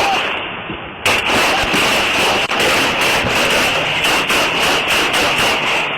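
A rapid string of gunshots, about two to three a second, in loud, distorted audio.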